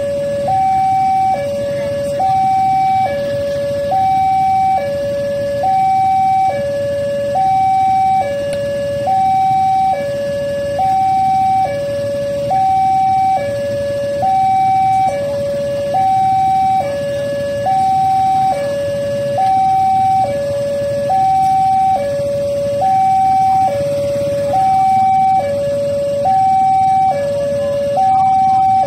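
Railway level-crossing warning alarm sounding: an electronic signal alternating steadily between a lower and a higher tone, each held about a second, warning that a train is approaching.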